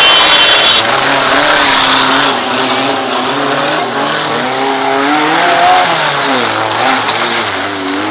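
Off-road vehicle's engine running hard, its pitch rising and falling as the throttle changes. A loud rushing hiss lies over it for the first two seconds.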